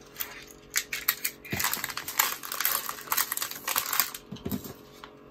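Clear plastic bags rustling and crinkling with many light clicks and taps as a thin metal curb chain and bagged kit parts are handled on a tabletop.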